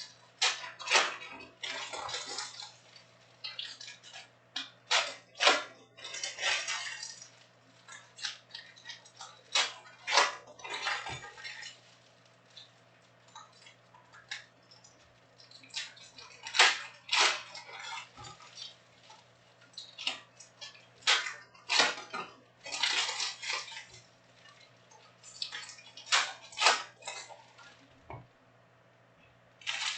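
Foil trading-card packs being torn open and cards handled: irregular crinkling and rustling bursts with sharp clicks, over a steady low hum.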